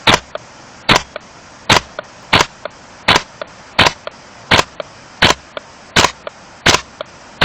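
WE-Tech G36C gas blowback airsoft rifle firing single shots, about eleven in a row roughly three-quarters of a second apart. Each sharp crack is followed by a fainter click.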